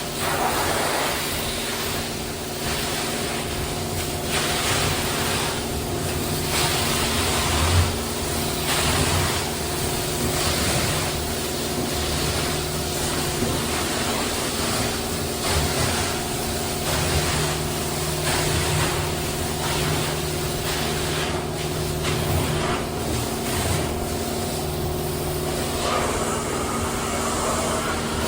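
Carpet-cleaning extraction machine running with a steady motor hum and a hiss of spray and suction that swells and fades about once a second as the cleaning wand is worked back and forth.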